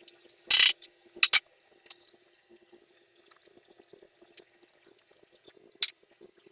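A handful of short scrapes and clinks of a utensil working in a cooking pan of softened onion and tomato, the loudest about half a second in, with a faint steady hum underneath.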